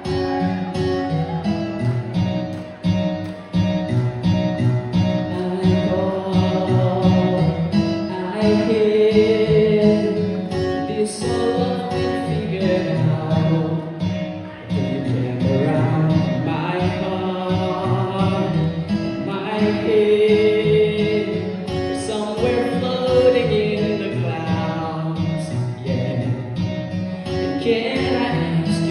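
A male singer singing a song into a microphone over backing music with guitar, amplified through a stage PA.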